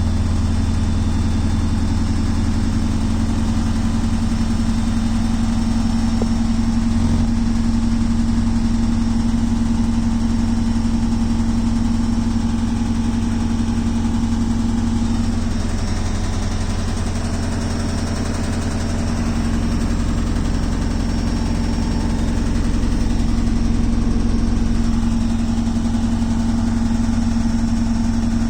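Beko WTK washing machine running with a steady hum and an ongoing rattle, a rattling noise that is new to the machine. The hum dips slightly about halfway through and comes back near the end.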